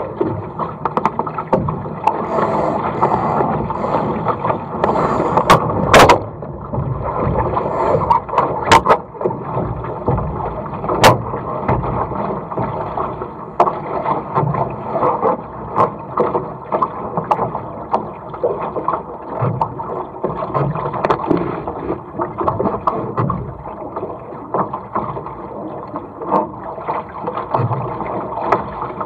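Water rushing and slapping against a small sailing dinghy's hull as it sails, a constantly churning noise. A few sharp knocks stand out, the loudest about six seconds in.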